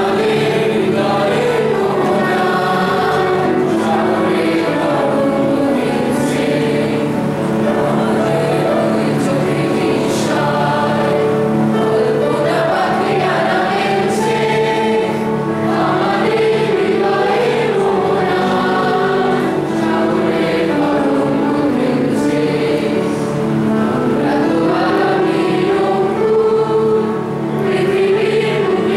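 A group of women singing a song together as a choir, the voices continuous throughout.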